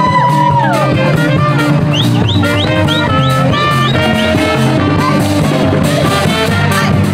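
Upbeat music with a steady drum beat and a melody of short notes over it.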